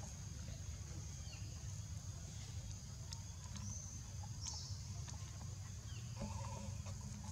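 Outdoor ambience: a steady high insect drone over a low rumble, with a few faint clicks. A short high chirp comes about three and a half seconds in, and a brief pitched animal call about six seconds in.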